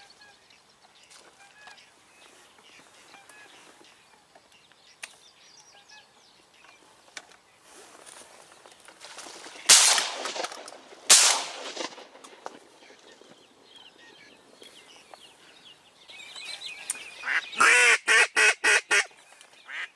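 Two shotgun shots about a second and a half apart, midway through. Near the end the hen decoy duck gives a loud series of about seven quacks.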